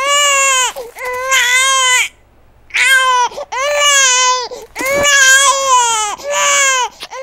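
A baby crying: a run of about six loud wails, each about a second long, with short breaths between.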